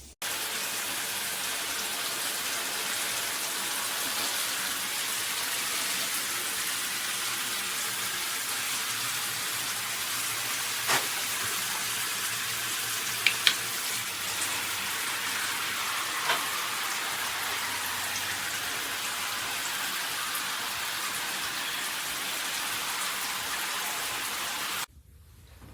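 Shower running: water spraying steadily from a shower head in an even hiss, with a few small clicks or knocks partway through.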